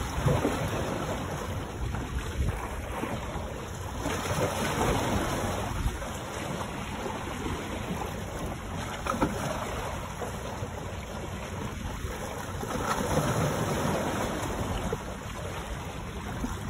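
Small waves washing and splashing against the boulders of a rock jetty, swelling every few seconds, with wind buffeting the microphone.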